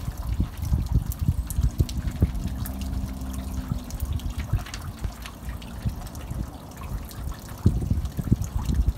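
Water trickling and splashing from the thin metal spouts of a granite temizuya purification basin, falling into the basin and running down over the stone.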